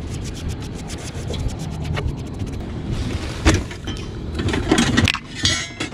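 Scratchy brushing of debris out of a rooftop unit's metal cabinet, a rapid run of fine ticks. From about three seconds in, a cardboard box's flaps are pulled open and handled, with a few louder knocks and rustles.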